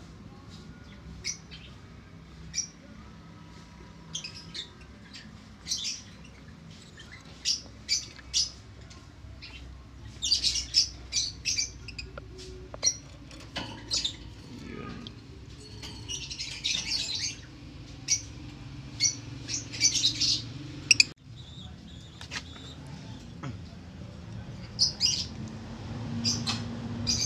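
Peach-faced lovebirds giving short, high-pitched chirps and squawks, scattered through with busier flurries now and then.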